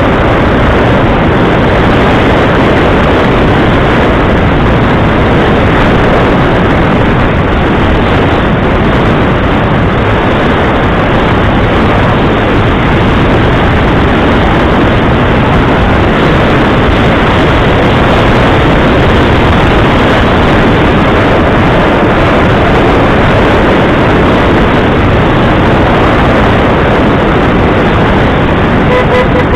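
Loud, steady engine and rushing noise from a moving motor vehicle, with a short horn toot right at the end.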